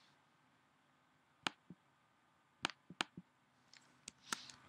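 About eight sharp computer clicks, spread unevenly and some in quick pairs, from a mouse button and keyboard keys as a cell in a form is clicked and typing begins.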